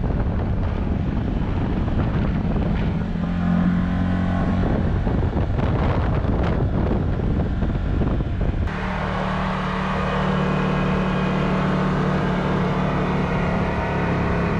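Side-by-side UTV engine running steadily at trail speed, with tyre and wind noise and a few knocks about halfway through. About nine seconds in the sound changes abruptly to a steadier engine drone with more hiss.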